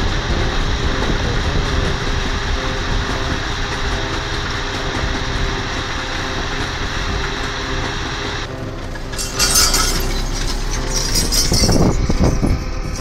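Belarus MTZ-892 tractor's diesel engine running steadily as the tractor works a field. About two-thirds in the sound changes, with two loud, hissy rushes near the end.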